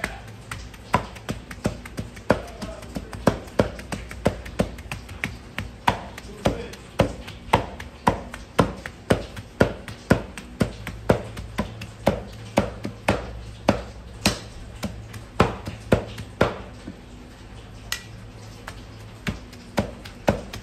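Heavy knives chopping raw meat into mince on a wooden tree-trunk block: sharp knocks of steel blades into the wood, about two a second, which thin out briefly near the end.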